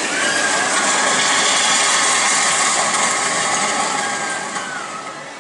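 Seven Dwarfs Mine Train roller coaster cars rushing along the track with a loud, steady rumble that fades over the last second as the train moves away.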